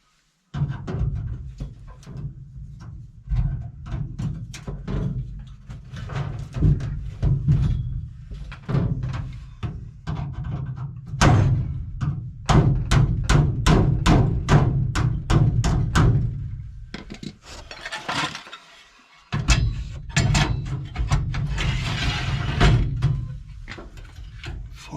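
Background music with a steady drum beat, cutting out briefly a little over three-quarters of the way through.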